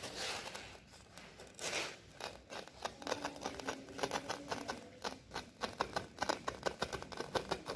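Utility knife blade slicing through the backing of a synthetic-grass (artificial turf) mat along a line: a couple of short scraping swishes at first, then from about two and a half seconds in a fast run of small sharp clicks, several a second, as the blade is drawn through.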